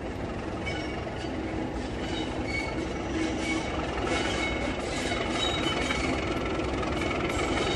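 Class 37 diesel locomotive with its English Electric V12 engine, hauling coaches round a curve as it approaches, growing slowly louder. The engine runs steadily under the rumble of the train, and the wheel flanges squeal in short high notes on the curve.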